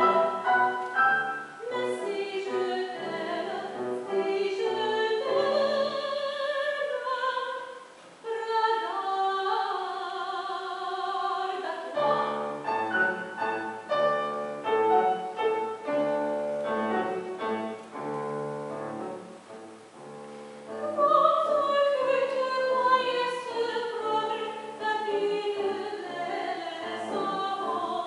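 A woman singing a classical song in an operatic style with vibrato, accompanied by a grand piano.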